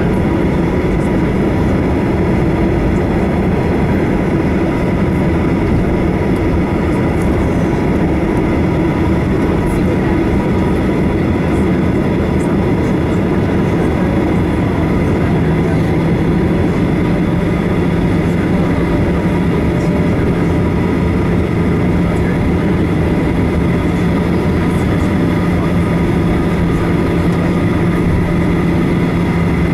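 Cabin noise of a Boeing 737-800 taxiing, heard from a seat beside the wing: its CFM56-7B turbofan engines run at taxi thrust under a steady rumble with several held tones. About halfway through, a low hum drops slightly in pitch and grows stronger.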